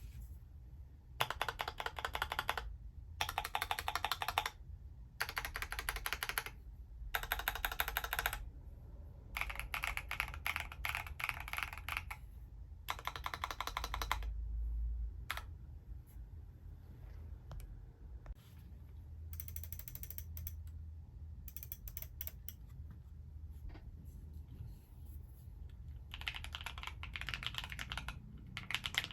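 Alice-layout mechanical keyboard being typed on in bursts of rapid keystrokes, each a second or two long with short pauses between. The typing thins to scattered key clicks through the middle and picks up again near the end.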